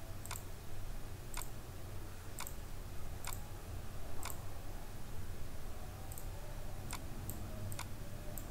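Computer mouse button clicking: about ten short, sharp single clicks spaced irregularly, roughly one a second and coming quicker near the end, over a steady low hum.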